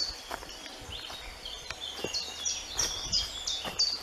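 A songbird singing runs of short, high, falling notes, about three a second, strongest in the second half, over footsteps crunching on dry leaf litter.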